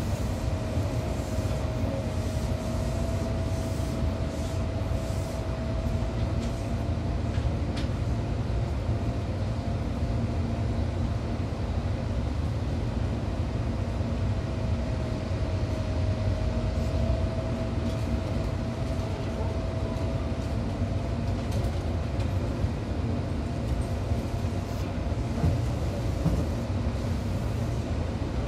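Seibu 263F electric commuter train running at steady speed, heard from inside the car: a steady low rumble with a constant mid-pitched hum that fades in and out.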